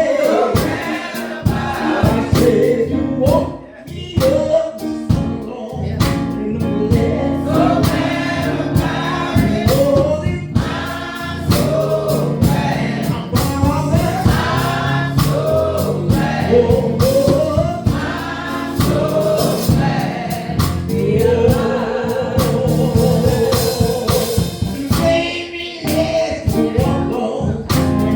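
Gospel choir singing with band accompaniment: drums keep a steady beat under the voices, and a long note is held about two-thirds of the way through.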